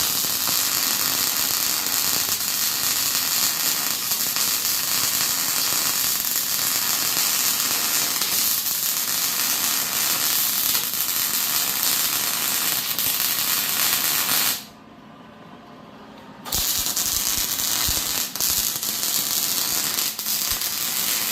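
Electric welding arc crackling and hissing steadily as a bead is laid. It stops for about two seconds about two-thirds of the way through, then strikes up again.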